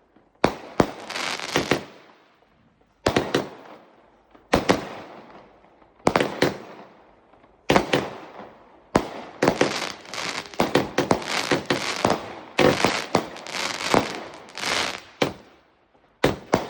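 Diamond Fireworks 'Lovely Nice Cake' barrage firing: sharp bangs of breaking shells, each with a fading tail, come in clusters with short pauses, then come thick and fast for several seconds near the end.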